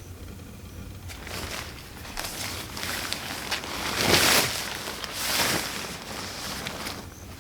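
Leaves and brush rustling, a rushing noise that swells twice in the middle.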